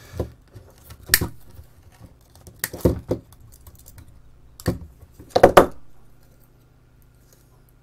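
Clicks and knocks of small circuit boards, a screwdriver and a metal chassis being handled during disassembly of a camera lens control box. There are about half a dozen sharp hits over the first six seconds, the loudest a quick cluster about five and a half seconds in, with a faint low hum underneath.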